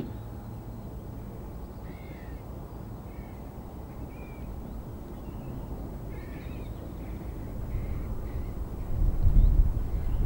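Crows cawing several times, short single calls spread over a few seconds, above a low outdoor rumble that grows louder near the end.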